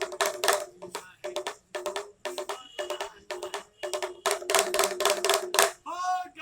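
A small hand drum beaten in quick rattling rolls, several strikes to a roll with short pauses between. A man's voice calls out briefly near the end.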